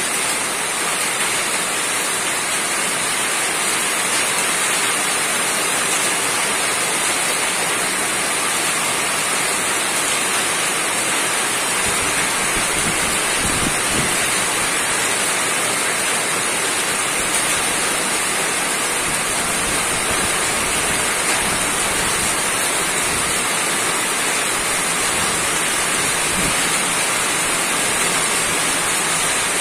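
Steady rain falling on a roof: a dense, even hiss of countless drops, with a few dull low thumps around the middle.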